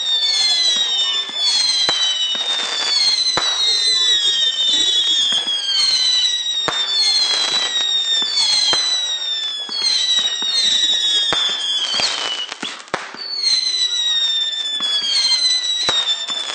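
A fireworks barrage of whistling shots, many shrill whistles overlapping one after another, each falling in pitch, punctuated by sharp bangs every few seconds. There is a brief lull about twelve seconds in before the whistles resume.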